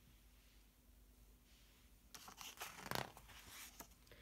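Near silence, then a brief faint rustle of paper with a few soft clicks about two to three seconds in: a picture book's page being turned.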